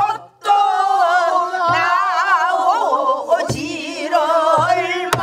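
A woman singing pansori in the slow jinyangjo rhythm, long held notes with a heavy wavering vibrato, marked by a few strokes on a buk barrel drum. A sharp click comes near the end.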